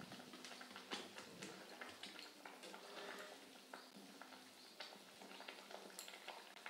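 Faint bubbling and popping of a thin potato curry broth at a rolling boil in a metal pan: irregular small ticks with a few sharper clicks.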